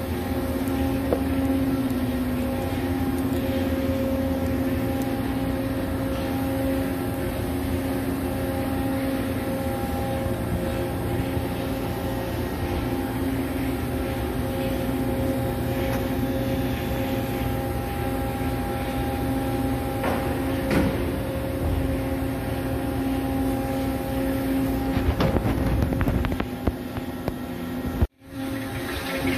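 Steady machinery hum in a heavy machine shop, a continuous drone with a few constant tones over a low rumble; it cuts out for a moment near the end.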